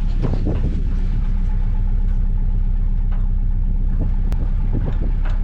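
A vehicle engine running steadily at a low idle, with a few short knocks and clatters near the start and near the end.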